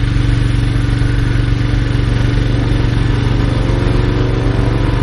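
A steady, loud low mechanical hum. About three and a half seconds in, a World War II air-raid siren begins to wind up, its tones slowly rising.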